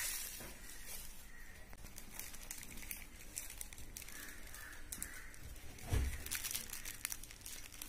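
Crinkling and crackling of plastic packaging and foil gift wrap being handled, with one dull thump about six seconds in.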